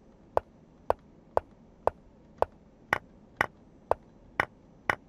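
Chess software's piece-move sound effect: short, sharp clicks about two a second, ten in all, as moves are played through on the board. The last few clicks are brighter.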